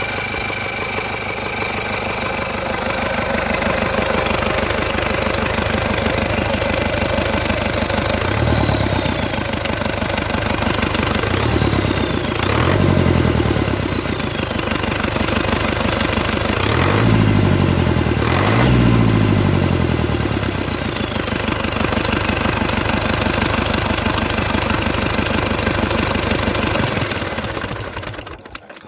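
MMZ D-245.7 four-cylinder turbodiesel of a GAZ Valdai truck idling with a steady diesel clatter. It is revved briefly several times, each rev followed by a high whistle that falls away. The engine is shut off near the end.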